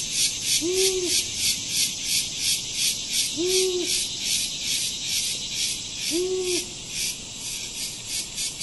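Night ambience of crickets chirping in a steady, pulsing high trill. Three short, low hoots rise and fall in pitch over it, about three seconds apart.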